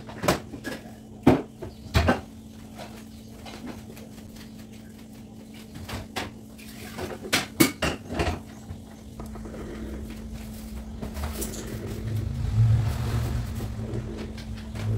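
Sharp clicks and light knocks of an electric drip coffee maker, its parts and containers being handled while coffee is prepared, in two clusters, over a steady low hum. From about ten seconds in, a louder low noise builds up.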